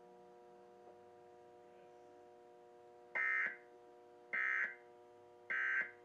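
Emergency Alert System end-of-message data tones: three short, buzzy digital bursts about a second apart, starting about three seconds in, that close the relayed alert. A faint steady hum runs underneath.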